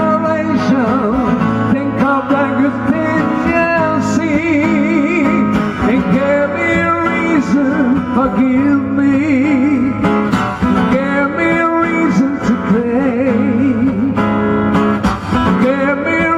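A man singing with acoustic guitar accompaniment, his voice wavering with vibrato on held notes.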